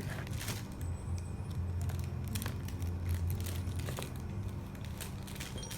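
Plastic crinkling and rustling with scattered small clicks, as a pet gnaws at its toy storage bag. A steady low hum runs underneath.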